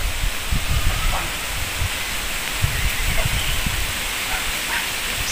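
Steady outdoor hiss with uneven low rumbling gusts of wind on the microphone, and a few faint short chirps.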